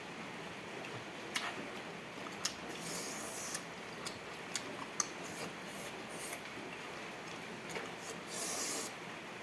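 Eating sounds of someone working through a plate of curry and rice: scattered sharp clicks and smacks with a few short hissing bursts over a steady background hiss.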